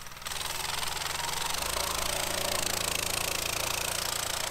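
A pit bike's small single-cylinder engine running hard while riding through deep snow, a rapid steady pulse under a loud hiss.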